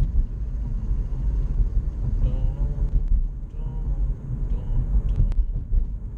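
Steady low rumble of road and engine noise inside a moving car's cabin, with a couple of faint, brief wavering tones about halfway through.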